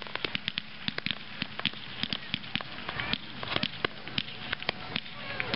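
Fireworks crackling: a rapid, irregular run of sharp pops and snaps from gold crackling stars as they burst and fall.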